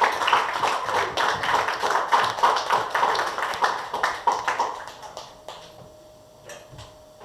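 Audience clapping, dying away about five seconds in, with a couple of stray claps after.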